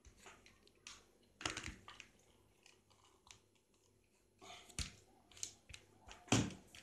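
Hard plastic blender housing handled and twisted open by hand: scattered sharp clicks and knocks of plastic, with a short scrape about four and a half seconds in.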